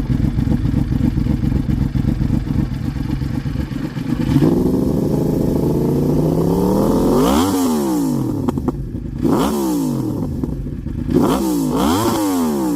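Yamaha R1's crossplane inline-four through a Toce aftermarket exhaust, loud: idling steadily, then revved up in one long climb about four seconds in, dropping back, followed by three sharp throttle blips.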